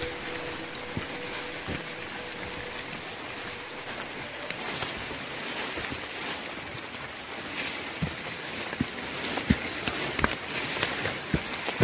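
Steady rain falling on foliage and rain gear, an even hiss broken by scattered sharp taps of drops, which come more often near the end.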